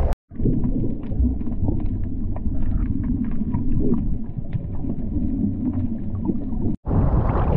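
Underwater sound of a choppy sea: a low, dense rumbling wash with scattered faint clicks and crackles. Near the end it breaks off and gives way to the hiss of wind and splashing waves at the surface.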